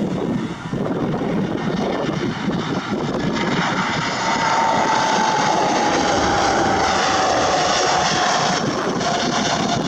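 Jet airliner passing close on landing approach: its engine roar builds, and a whining tone slowly falls in pitch as it goes by. Gusty wind buffets the microphone at first.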